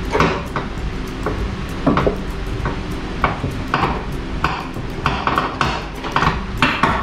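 Sharp metallic clinks and pings of a long-handled wrench working on the exhaust front-pipe studs under a Mazda Roadster, one strike every half second or so, irregular in strength.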